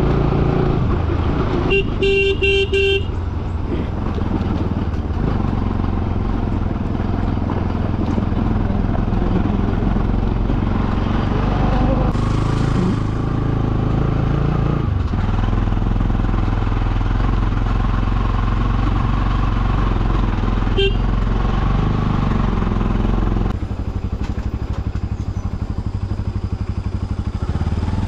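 Motorcycle engine running steadily while riding over a rough dirt road. A horn sounds for about a second near the start, with a very short beep later, and the engine gets a little quieter about three-quarters of the way through.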